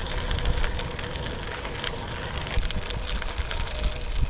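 Bicycle tyres rolling over a dirt trail, with a light crackle of grit under the wheels and wind rumbling on the microphone.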